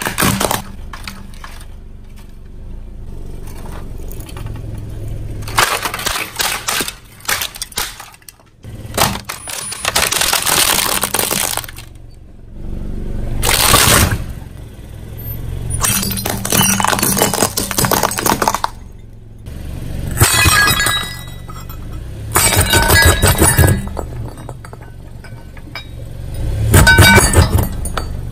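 Car tyre rolling over and crushing brittle, crunchy objects: about eight separate bursts of cracking and crunching, each lasting one to two seconds, over the steady low hum of the car.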